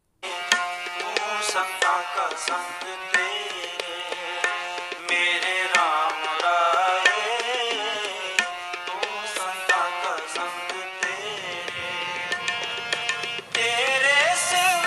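Background music with drum strokes under a gliding melody, starting abruptly and getting louder near the end.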